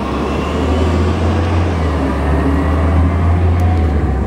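Road traffic: a heavy motor vehicle's low engine rumble that swells and then eases as it passes.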